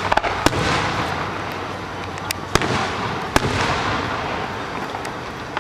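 Aerial fireworks bursting: sharp bangs near the start, a pair about two and a half seconds in and another about a second later, each followed by a long crackling hiss as the shells' effects fall.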